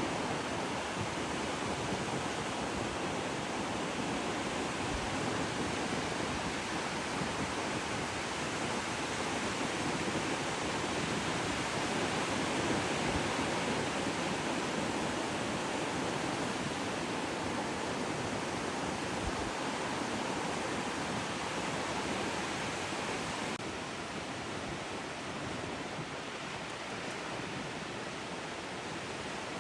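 Steady rushing noise with no distinct events, a little quieter from about 23 seconds in.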